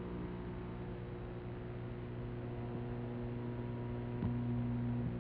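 Steady electrical hum with evenly spaced overtones over a hiss: mains hum and tape noise on an old broadcast recording. There is a faint click about four seconds in.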